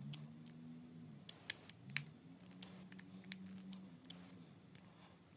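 Light, sharp metallic clicks at an irregular pace, about a dozen or more: a 2.5 mm hex driver seating in and turning the cylinder-head bolts of an OS Max 105 model glow engine, tightening them down in a star pattern.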